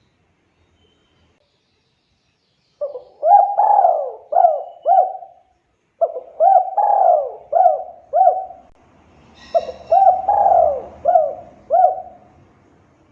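A spotted dove (tekukur) cooing, three song phrases each made of several low hooked coos, starting about three seconds in. A brief high chirp from another bird comes just before the third phrase.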